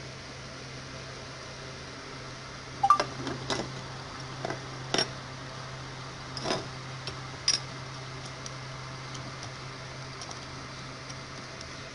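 Light clicks and taps of a Baofeng UV-82 handheld radio's circuit board and aluminium chassis being handled and fitted back together. About half a dozen come between three and eight seconds in, the first the loudest, over a steady low hum.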